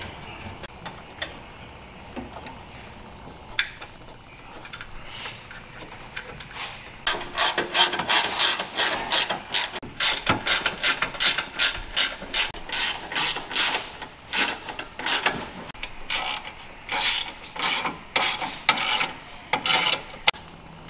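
Hand ratchet wrench with a socket clicking as it is worked back and forth to run in a bolt, repeated strokes starting about seven seconds in.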